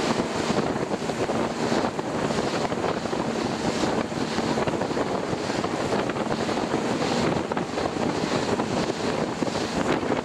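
Small motorboat under way: its engine running steadily, mixed with wind buffeting the microphone and water rushing past the hull.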